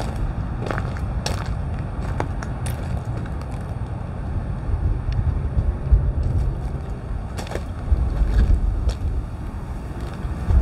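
Wind buffeting the microphone over a steady low rumble, with scattered crunching steps on gravel ballast.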